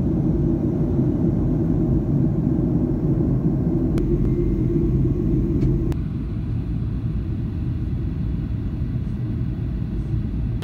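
Jet airliner cabin noise in flight: a steady low rumble of engines and airflow heard through the window seat, easing slightly about six seconds in.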